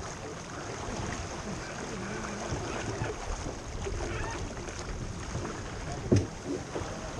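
Water rushing along the hull of a small racing sailboat under sail, with wind on the microphone and faint voices. A single sharp knock about six seconds in.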